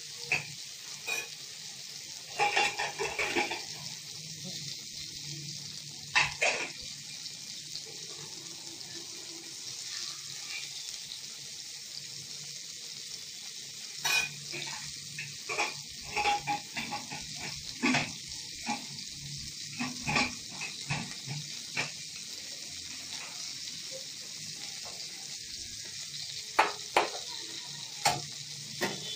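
Pointed gourd pieces frying in oil in a steel wok: a steady sizzling hiss, broken by scattered clinks and scrapes of a steel spatula against the pan, in short clusters.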